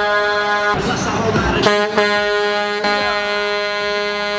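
Semi-truck air horn blowing in two long, steady blasts: the first cuts off under a second in, the second starts about a second later and holds for about three seconds. Crowd voices and shouts sound underneath and in the gap.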